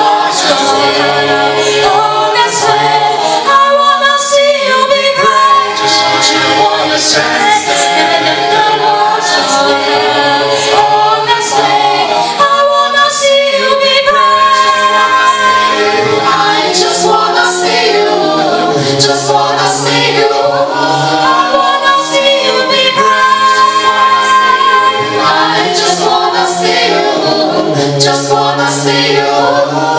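Mixed a cappella vocal group singing in close harmony through microphones, with a low sung bass line under held chords and sharp vocal percussion keeping a steady beat.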